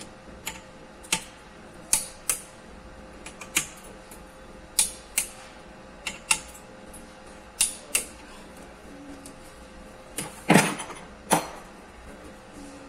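A metal hand tool clicking and tapping on a bare engine cylinder head: about a dozen sharp metallic clicks, many in pairs a third of a second apart, the loudest pair near the end.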